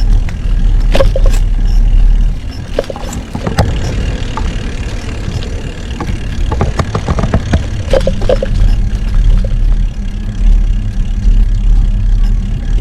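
Steady low rumble of wind and road noise on a camera riding along on a moving bicycle, with scattered clicks and rattles.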